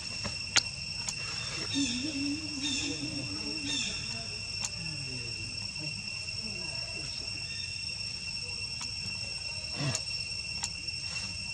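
Insects droning steadily at two constant high pitches. A short wavering call rises and falls for about two seconds, a couple of seconds in, and a few sharp clicks land here and there.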